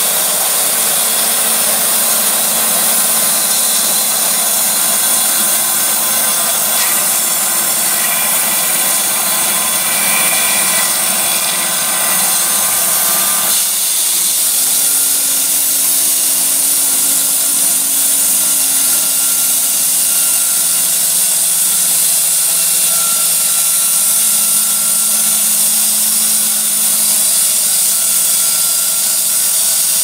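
Bandsaw mill's blade sawing lengthwise through a large log, driven by its 15 kW motor, a loud, steady cutting noise. The sound changes abruptly about 13 seconds in, then carries on steadily.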